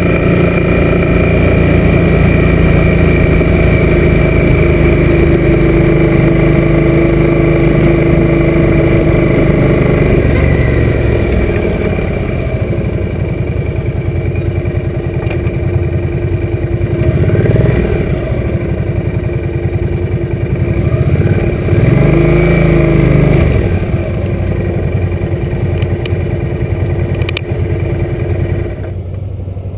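Suzuki M800 cruiser's V-twin engine running steadily at road speed, then easing off as the bike slows. Revs rise and fall twice in the middle, then the engine runs low and steady, dropping quieter near the end as the bike comes to a stop.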